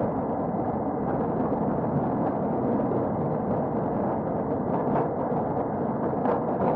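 Thunder: a continuous low rumble of rolling thunder, with a few faint crackles about five and six seconds in.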